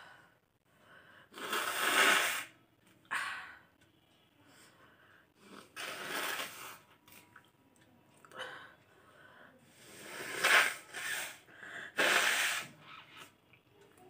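A woman sneezing several times, some sneezes preceded by a rising, breathy build-up, with quieter breathing and sniffing between them.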